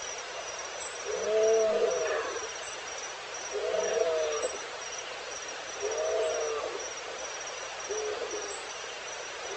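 Lion grunting at the tail end of a roaring bout: four deep grunts about two and a half seconds apart, each fainter than the last. A steady, fast chirping of insects runs underneath.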